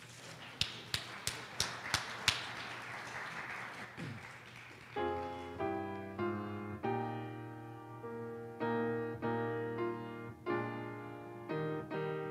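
Rustling with about six sharp clicks in the first couple of seconds. Then, from about five seconds in, a piano plays a hymn introduction as a series of sustained chords, each one struck anew.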